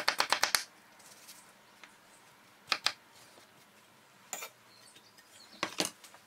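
Chef's knife chopping cucumber fast and evenly on a plastic cutting board, stopping about half a second in. A few scattered knocks and scrapes of the knife on the board follow.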